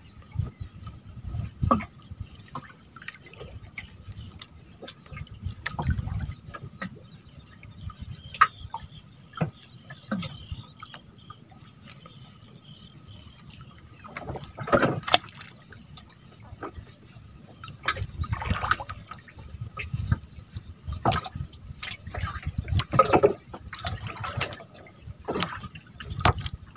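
Water sloshing and dripping close by, with irregular splashes and small knocks, swelling and easing unevenly.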